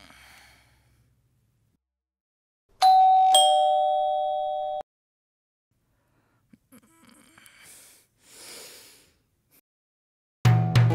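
An electronic doorbell gives one two-note ding-dong, a higher note then a lower one, about three seconds in, and rings down for a couple of seconds before cutting off. Bedding rustles a few seconds later, and loud music with a beat starts near the end.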